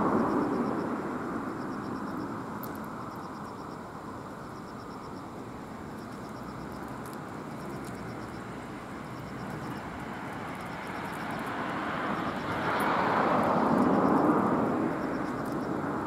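Road traffic passing: a broad rushing noise that dies away over the first few seconds and swells again near the end as another vehicle goes by. A faint, rapid high ticking repeats in short runs throughout.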